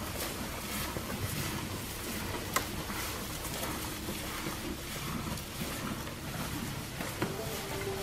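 Jersey cows pulling grass hay from a wooden feeder and chewing it: a steady rustling and crunching of dry hay, with one sharp click about two and a half seconds in.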